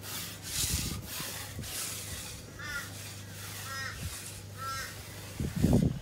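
A steel edging trowel scraping along the edge of freshly poured concrete in short strokes, while a bird calls three times, about a second apart. A brief, louder low sound comes near the end.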